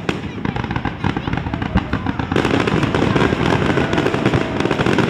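Aerial fireworks going off in quick succession: a dense run of bangs and crackles that grows thicker and louder about two seconds in.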